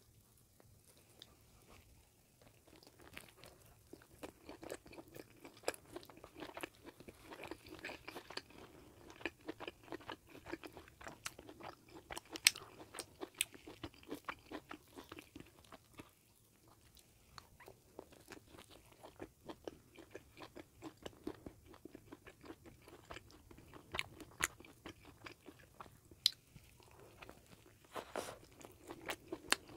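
Close-miked chewing of a bagel sandwich: bites and moist, crunchy chewing in dense runs, with a short lull about halfway through.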